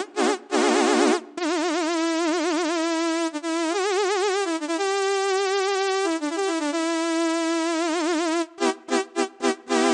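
Expressive E Osmose 49 synthesizer playing a single bright lead line. A couple of short notes open into one long held note whose pitch wobbles widely and steps up and back down a few times. Near the end come rapid short repeated notes, about three a second.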